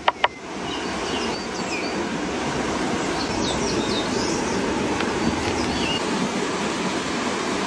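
Steady rushing noise, with a sharp click just after the start and several short bird chirps scattered through.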